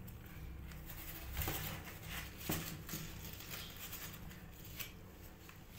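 Mother cat licking and grooming her newborn kittens: faint, repeated wet licking and fur-rustling sounds, with two louder rustles about one and a half and two and a half seconds in.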